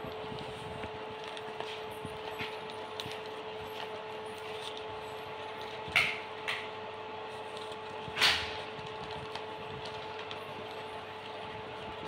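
A young parrot clambering over and nibbling a paper wall calendar and its rod: light clicks and paper rustles, with three louder sharp knocks or scrapes about six, six and a half, and eight seconds in. A steady hum runs underneath.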